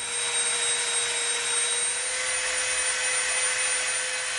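Dremel rotary tool running at steady high speed, grinding the edge of a small EVA foam disc round: an even motor whine over a constant hiss.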